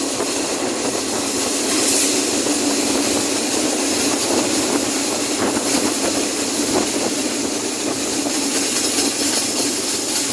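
Diesel engine of an RHN diesel railcar running steadily, sounding solid, with a constant low hum under a broad hiss.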